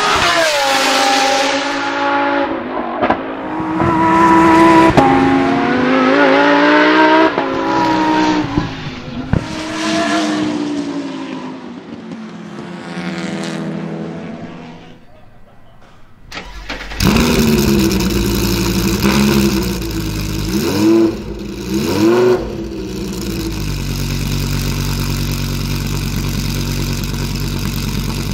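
Lamborghini Huracán Super Trofeo's naturally aspirated 5.2-litre V10 revving hard on track, its pitch climbing and dropping with each shift. About sixteen seconds in, the race car's V10 fires up with a sudden loud start, is blipped a few times, and settles into a steady idle.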